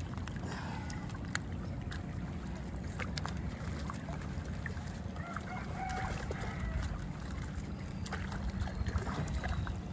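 Steady low rumble of a small boat on the water, with scattered light clicks and knocks and a faint brief call about six seconds in.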